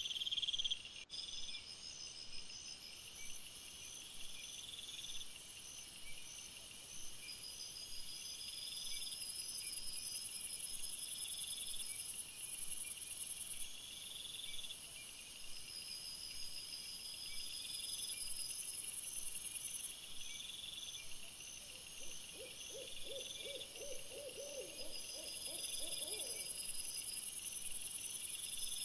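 Night chorus of crickets chirping in steady high pulses that swell and fade every few seconds. About three quarters of the way through, a short, fast-wavering low call comes in for a few seconds.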